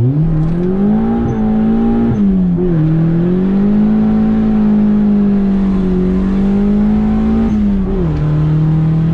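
Turbocharged single-cam D16 four-cylinder of a Honda Civic wagon pulling hard on about 7.5 pounds of boost. It revs up through the gears, dropping in pitch at a shift about two seconds in and again near the end.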